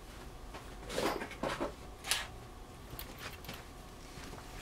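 Faint handling sounds while a screw is picked out: a few soft clicks and scuffs between about one and two seconds in, then small ticks.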